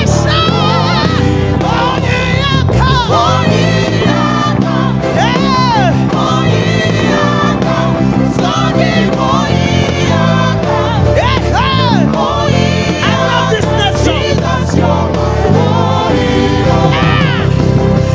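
Live gospel praise music: a band with a strong bass line and voices singing over it, their pitch sliding through runs.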